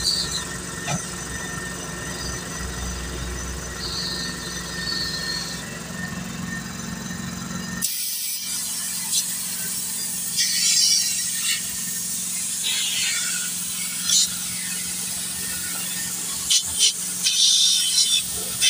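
A steady mechanical hum for about eight seconds, then after a sudden change a series of short bursts of air hissing at a truck tyre, the loudest near the end.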